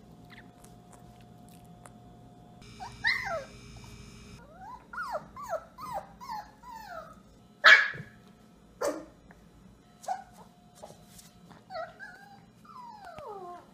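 A puppy yipping and whining: a run of short, high cries that slide down in pitch, with two louder, sharper yaps a little past halfway.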